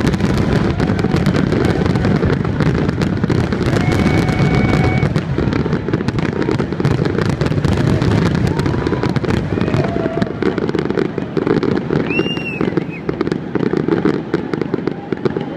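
Fireworks finale barrage: many aerial shells bursting in rapid succession, a dense continuous rumble of overlapping bangs and crackles that thins slightly near the end.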